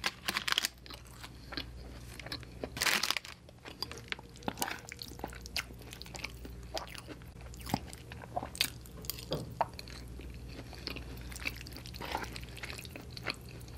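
Close-miked eating sounds: two loud crunches in the first three seconds, then chewing and mouth sounds with short clicks as a fork twirls fettuccine on a plate.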